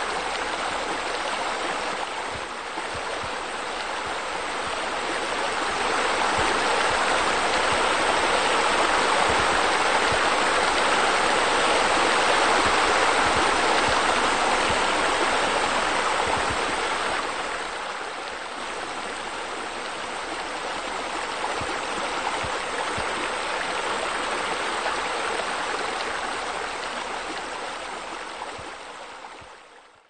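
Steady sound of running, splashing water from a pool waterfall. It grows louder for about ten seconds in the middle, then eases back and fades out at the very end.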